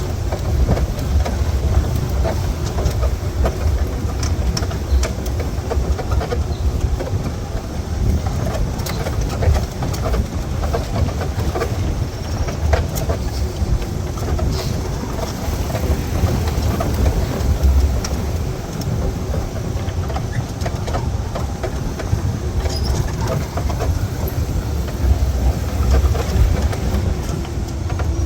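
Safari jeep driving over a rough track: a steady low rumble with frequent rattles and knocks.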